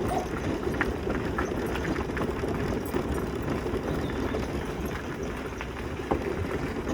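Mobility scooter tyres rolling over a gravel path: a steady crunching rumble with many small irregular clicks of stones.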